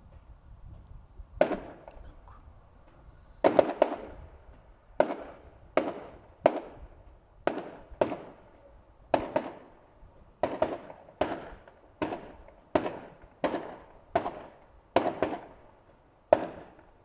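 Bonfire Night fireworks display going off: after a short lull, a steady run of sharp bangs, about one or two a second, each followed by a short echo.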